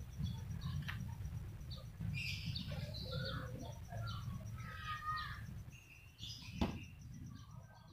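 Small birds chirping and tweeting in short scattered calls over a steady low background rumble, with one sharp click near the end.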